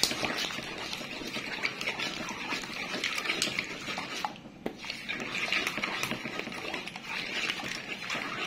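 Coconut milk being stirred in a large metal pan with a spatula: the utensil scrapes and clicks on the metal and the liquid sloshes, with a brief lull a little past halfway.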